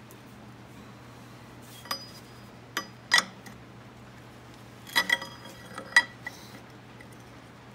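Worn vintage open-end wrench clinking against the nut of a harmonic balancer installer tool as it is fitted and turned: about half a dozen sharp metal clinks, each with a short ring, the loudest a little after three seconds in.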